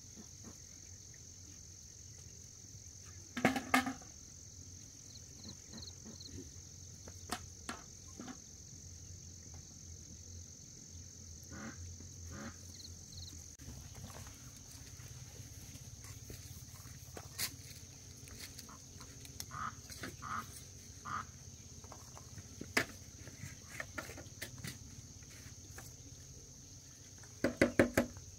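Steady chirring of insects, with scattered knocks and scrapes of a small hand hoe working dry soil. A chicken clucks a few times, about three seconds in and again near the end.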